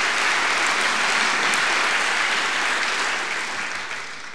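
A large audience applauding, the clapping dying away near the end.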